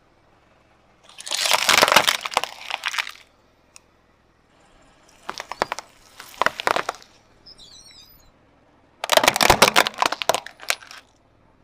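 Car tyre rolling over and crushing small objects on asphalt. There are three bursts of crackling crunches about three seconds apart; the middle one is a row of spiky green fruits breaking under the tread.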